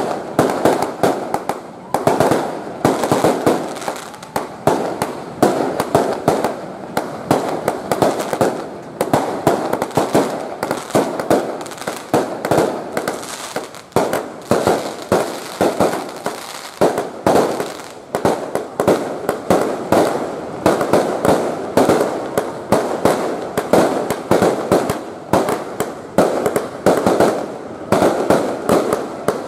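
Fireworks going off in a dense, continuous barrage: rapid bangs and crackling, several a second, with no pause.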